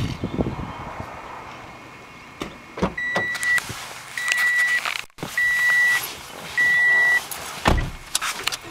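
Car's cabin warning chime beeping, a steady high tone repeated four times at about one beep a second, with scattered clicks and a heavy low thump near the end.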